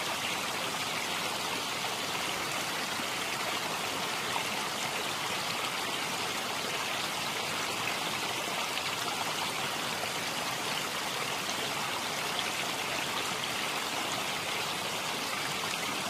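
Steady rushing of flowing water, like a stream, holding an even level with no breaks.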